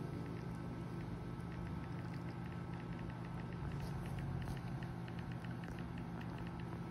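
A steady low hum with a quick run of faint, light ticks, several a second, from about two seconds in.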